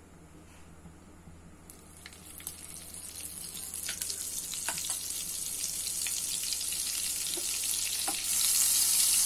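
Butter sizzling as it melts in hot sunflower oil in a nonstick kadai. The sizzle starts faint about two seconds in, grows steadily louder, and jumps louder near the end as a wooden spatula stirs it.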